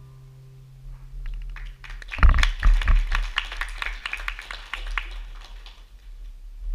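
The last guitar chord rings out and fades, then a small audience claps for about three and a half seconds, the applause thinning out toward the end.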